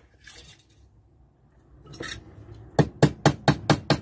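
Small hammer tapping a panel pin through a strip of tin-can metal into a wooden frame. About six quick, even taps, some five a second, start near three seconds in, after a light clink of tin being handled.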